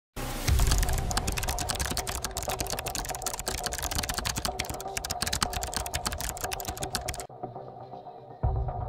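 Rapid computer-keyboard typing: a dense, fast run of keystroke clicks that stops about seven seconds in, over a faint steady hum. A low sound starts just before the end.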